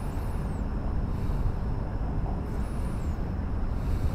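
Steady low outdoor rumble with no engine running, with two faint high falling chirps, one just after the start and one near three seconds in.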